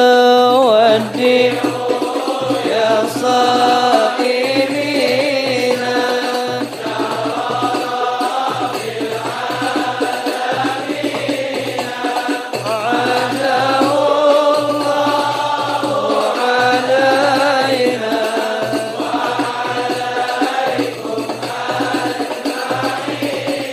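Interlude of an Arabic devotional qasida (nasheed): a wordless chanted melody with vibrato over a low backing line that breaks off and comes back every couple of seconds, between sung verses.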